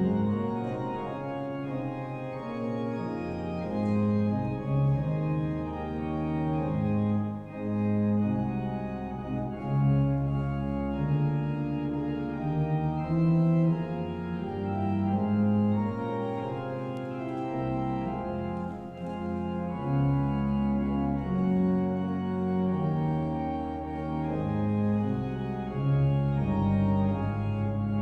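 Organ playing offertory music during a church service: slow sustained chords that change every second or two over a low bass line.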